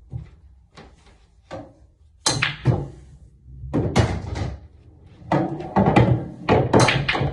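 Pool balls clacking together and knocking against the table's cushions and pockets: a run of sharp clicks, then four loud clattering knocks.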